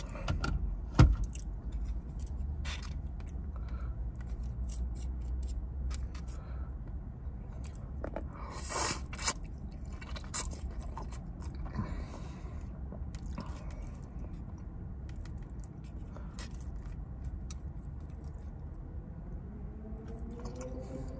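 Close-up eating sounds: chewing and biting, with wooden chopsticks clicking and scraping on a foam takeout tray, and a noodle slurp about nine seconds in. A sharp knock about a second in is the loudest sound, over a low steady hum.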